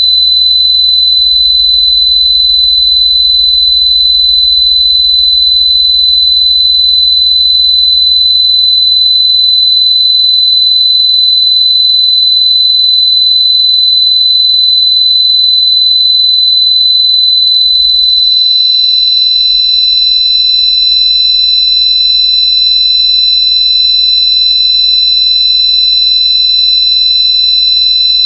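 Loud electronically synthesized tone: a steady, shrill high pitch over a low hum, with fainter side tones around the high pitch that shift a few times.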